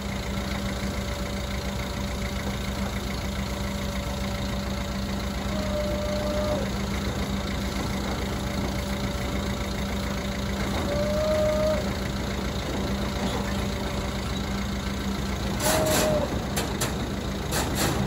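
Truck engine idling steadily, with a short mid-pitched tone recurring about every five seconds and a few sharp knocks near the end.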